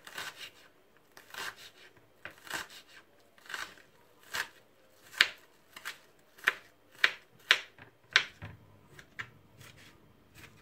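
Kitchen knife chopping a shallot on a wooden cutting board: a series of uneven knife strikes, about one a second, coming faster and sharper about halfway through.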